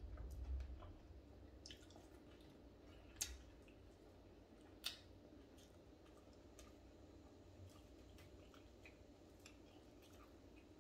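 Near silence with faint eating sounds: small scattered clicks and smacks of fingers picking apart fried tilapia and of chewing, with two sharper clicks around the third and fifth seconds.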